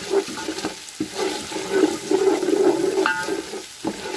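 Wooden spoon stirring and scraping fried onions and whole spices around a steel pot while they fry in oil, with a sizzle. Two sharper knocks of the spoon against the pot, about a second in and about three seconds in.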